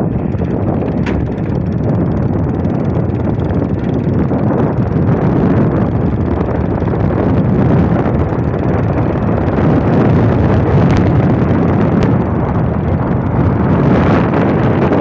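Wind buffeting the microphone: a steady, loud rumble with no clear pitch.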